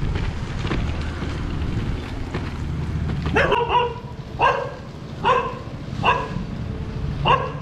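A dog barking five times, about once a second, over the low rumble of road and wind noise.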